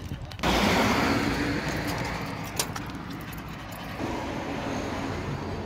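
A car driving past on the street, its noise starting suddenly and fading away over a few seconds, with one short click partway through.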